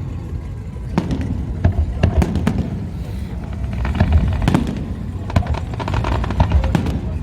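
Fireworks going off: many sharp cracks and pops in quick succession over a low, steady rumble.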